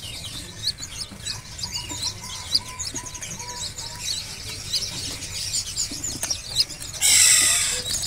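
A cage crowded with white-eyes (pleci), many short high chirps overlapping throughout. A run of lower repeated notes comes in the first few seconds, and a loud burst of rustling comes about seven seconds in.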